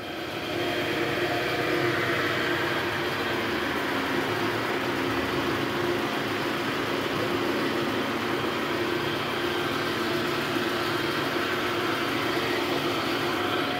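Toyota Vellfire ANH20's 2.4-litre four-cylinder engine idling steadily with the bonnet open, running on a newly fitted left engine mount that replaced a cracked one. The engine sound grows a little louder about half a second in.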